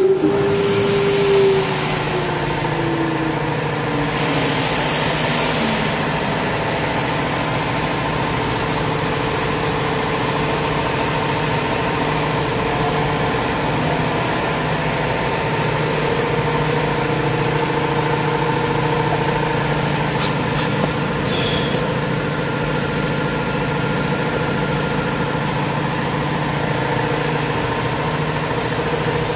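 JNLINK LXM0609 CNC router running a cut: the spindle motor and machine give a steady mechanical hum with a few steady tones. One tone slides down in pitch over the first few seconds.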